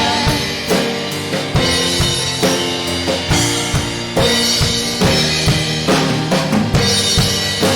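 Instrumental break in a worship song: a drum kit keeps a steady beat with kick and snare, and sustained bass and keyboard or guitar chords play under it, with no singing.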